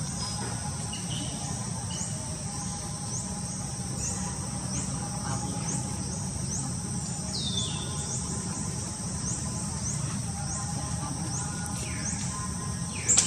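Steady high-pitched insect chorus of forest crickets or cicadas, with a short rising chirp repeating about twice a second. A single falling call comes about halfway through.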